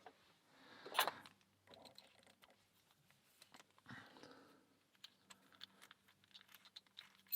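Faint clicks and scrapes of small metal Allen keys and a padlock being handled, with a louder scrape about a second in and a sharp click near the end.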